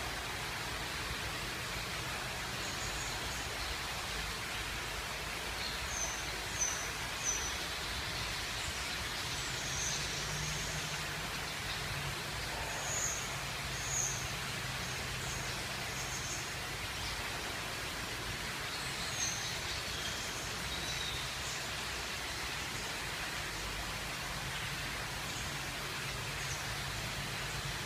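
Steady even hiss of background noise with short high bird chirps now and then, the loudest ones about six to seven seconds in and again around the middle.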